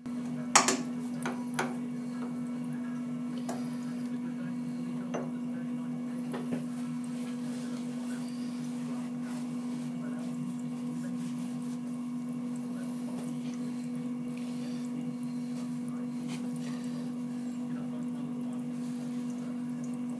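Tool post grinder setup running with a steady low motor hum while the wheel is off the work, with a few light knocks of the metal R8 arbor being handled; the sharpest knock is about half a second in.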